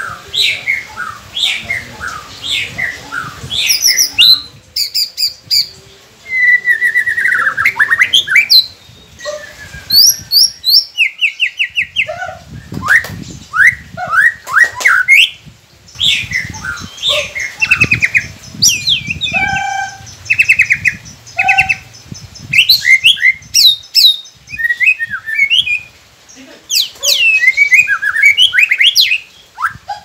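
White-rumped shama singing a long, varied song of loud whistled notes, sweeping slurs and fast rattling trills, delivered in bursts with short pauses between phrases.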